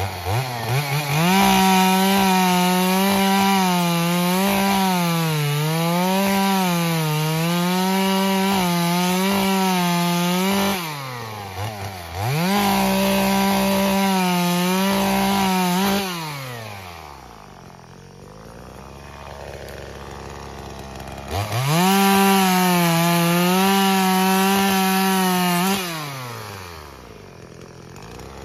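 Chainsaw cutting through logs of fallen trees: it revs up to full throttle three times, its pitch sagging and recovering as the chain bites into the wood, and drops back to idle between cuts.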